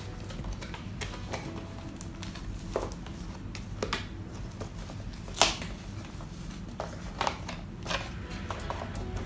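Cardboard phone box being handled and opened: scattered clicks, taps and scrapes of the box and its inner packaging, the sharpest about five and a half seconds in.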